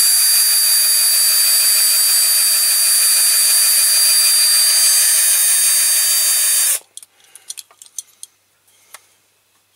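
Cordless drill running steadily under load as it drills out a rivet in a diecast toy tractor, then cutting off abruptly about seven seconds in. A few light clicks follow.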